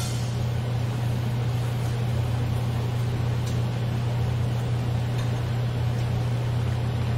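Steady low hum and rushing air of a Korean barbecue table's overhead grill exhaust fan drawing through its duct.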